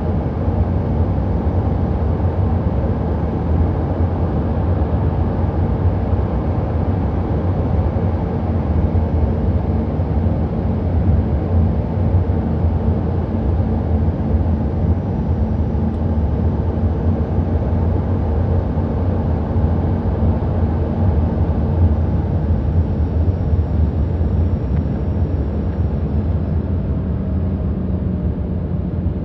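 Steady cabin noise of a jet airliner on final approach with flaps extended: a low engine drone under rushing air. The engine hum dips slightly in pitch near the end as the aircraft comes down over the runway.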